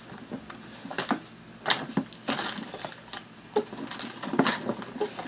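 Game terrain pieces and box parts being handled and packed into a board-game box: a string of irregular light knocks, clatters and scrapes.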